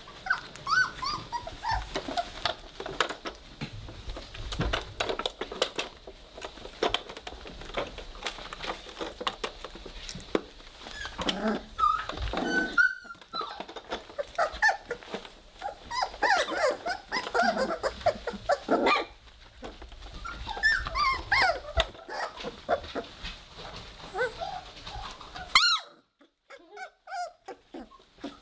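A litter of three-week-old Weimaraner puppies playing, with many short high-pitched squeaks and whimpers, a few small growls, and scrabbling and clicking of paws and toys. The sounds come in quick, uneven bursts.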